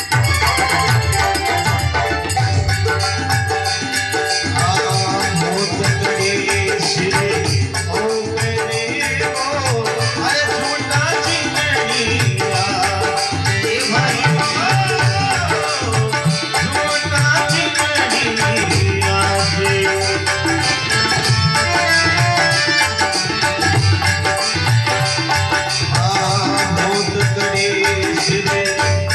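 Instrumental interlude of Rajasthani devotional folk music, with tabla-style hand drums keeping a steady rhythm under a melodic instrument line.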